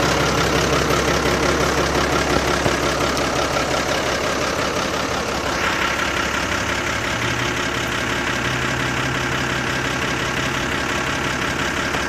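Cummins NHC-250 inline-six diesel of a 1963 Diamond T 931 CN cabover idling steadily, with a brighter hiss joining about halfway through.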